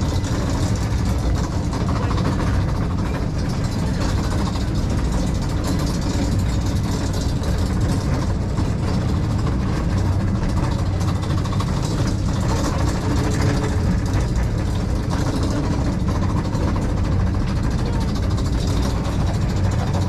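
Steep-slope monorail car's drive unit running steadily as the car climbs a steep grade on its single rail, an even mechanical sound with no change in pace.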